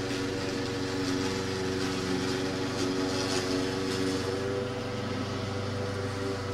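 A small engine running steadily, its pitch wavering slightly, with a little extra hissing noise about three seconds in.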